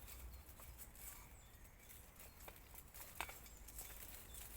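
Near silence: a few faint, sharp clicks, about one, two and a half and three seconds in, over a low rumble.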